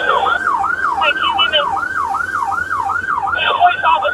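Emergency vehicle siren in a fast yelp, its pitch sweeping up and falling back about three times a second.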